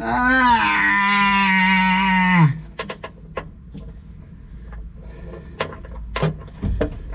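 A man's long, drawn-out groan of strain, held at a steady pitch for about two and a half seconds and falling off at the end. Light clicks and knocks of hand work on metal fittings follow.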